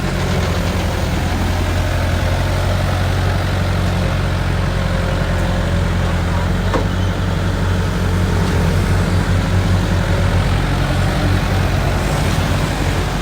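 Excavator's diesel engine running steadily with a low drone, and a single sharp tick about seven seconds in.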